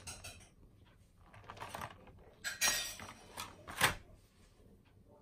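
Handling noises from unpacking a wireless charger: clear plastic packaging crinkling in a few short bursts, and a sharp click about four seconds in.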